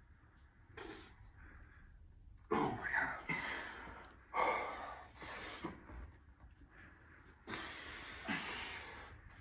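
Arm wrestlers' heavy, strained breathing under full effort: several forceful exhales and grunts, the loudest about two and a half and four and a half seconds in.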